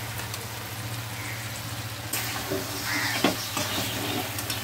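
Chopped vegetables and ground spices frying in a black pan, sizzling while a steel spatula stirs and scrapes them against the pan. The sizzle gets louder about two seconds in as the masala is mixed through.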